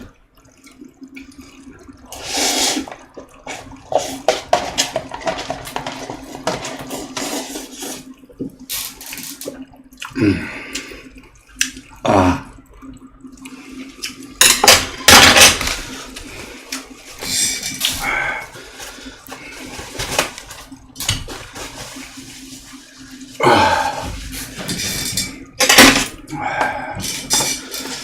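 Person loudly slurping and chewing spicy stir-fried instant noodles (Buldak), in repeated irregular slurps, some up to a second long, over a steady low hum.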